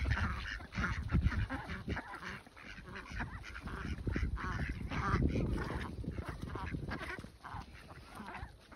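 A flock of domestic ducks quacking and chattering as they crowd together eating scattered feed off muddy ground.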